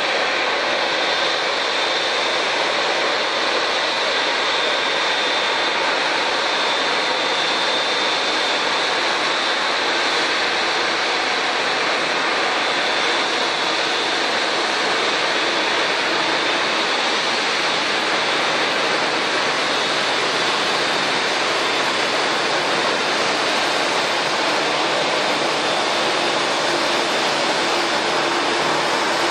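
Jet airliner engines running steadily: an even hiss with a thin, high, steady whine over it, holding at one level without rising or falling.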